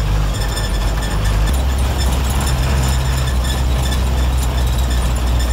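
A 1990s Mitsubishi diesel bus engine running under way, heard from inside the cabin with road noise, a steady low drone whose pitch shifts about a second and a half in.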